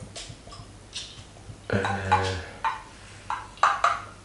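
Clinks and knocks of a glass cider bottle being opened with a bottle opener, then tilted to pour into a glass near the end. About two seconds in there is a short, low voice sound.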